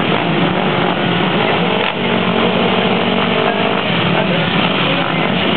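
ATV engine running loud and steady, with a brief dip about two seconds in.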